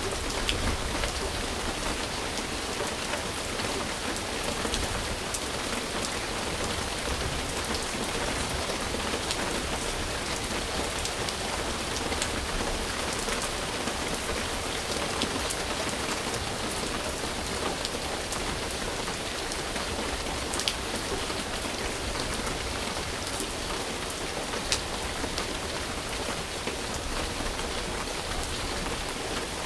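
Steady rain falling and pattering on a surface, a dense even hiss with individual drops ticking sharply now and then.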